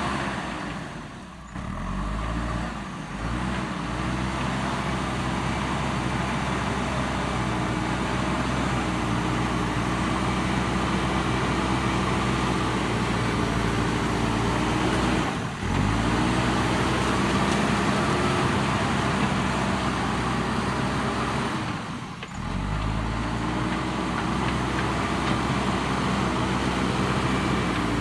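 JCB backhoe loader's diesel engine running under load, its pitch rising and falling as it works the bucket, with three brief sudden drops in sound.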